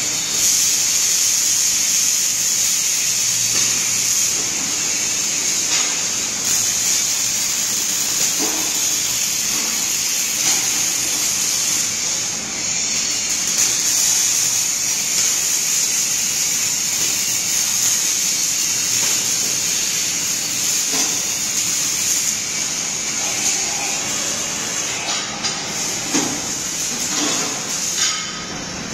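Robotic wire-fed (MIG) welding arc giving a steady high hiss, with brief breaks a couple of times and again near the end as the torch stops between welds.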